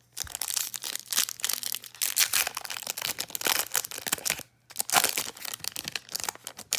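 Crinkling of a foil trading-card pack wrapper being handled and torn open, a steady dense crackle that pauses briefly about four and a half seconds in, then resumes.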